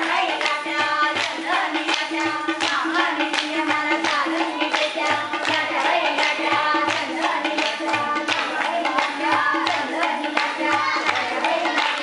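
A group of women singing a folk song, with fast rhythmic hand clapping and a drum keeping a steady beat.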